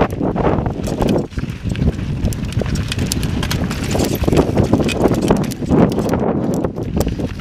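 Mountain bike clattering and rattling over rough sandstone slickrock and gritty dirt, with many quick irregular knocks from the tyres and frame over rock steps, under steady wind buffeting on the microphone.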